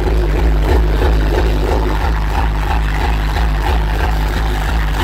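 Hardcore techno playing loud over a club sound system, with a fast, distorted kick drum pounding in a steady rhythm.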